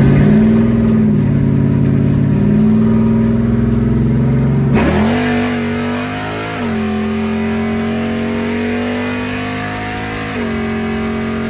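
Car engine running under way, its pitch holding level and jumping suddenly a few times, with a quick rise about five seconds in, like revs changing between gears.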